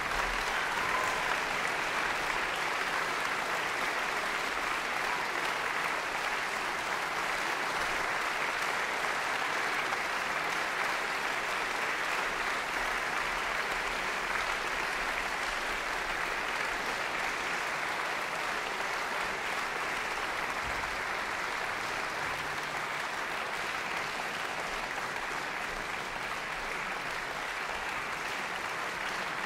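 Audience applauding steadily, the claps merged into one even wash.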